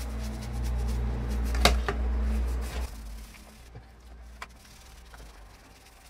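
Paint brush scrubbing a plastic cassette-recorder front panel over a basin of soapy water, with light splashing and scattered clicks of the panel and brush. A low hum runs under the first half and stops about three seconds in; one sharp click stands out just before it.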